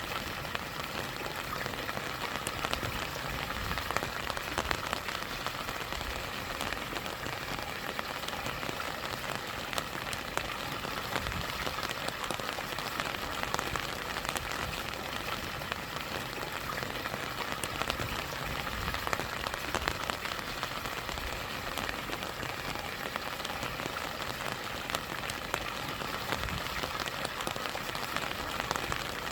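Steady rain falling, with many small drop ticks, over the even rush of a small stream and mini waterfall.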